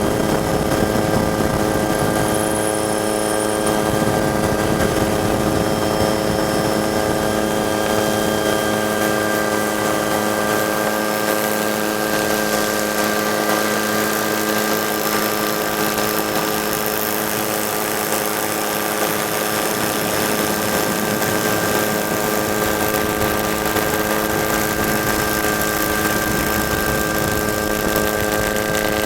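Helicopter running steadily: a constant engine whine made of several held tones that do not change pitch.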